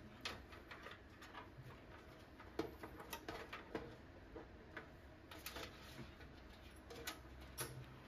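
Faint, irregular light clicks and taps as power-supply cables and plastic connectors are handled inside a steel PC case.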